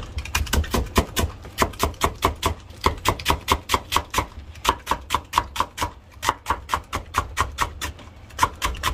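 Kitchen knife chopping napa cabbage into thin strips on a cutting board: quick, even strokes about four or five a second, with a brief pause about four seconds in.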